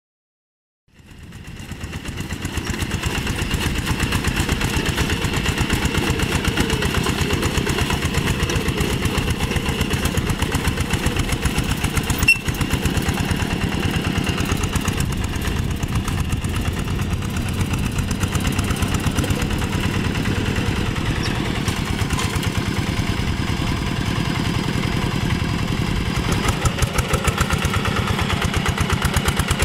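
Single-cylinder Kubota diesel engine of a two-wheel hand tractor running steadily with a fast even firing beat while it drags a rake through paddy mud. The sound fades in about a second in.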